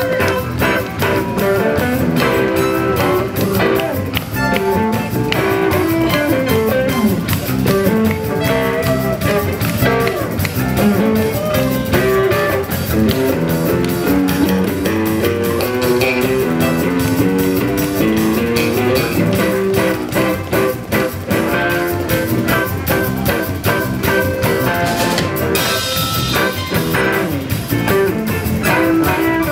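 Live blues band playing, electric guitar to the fore over drum kit, bass and keyboards.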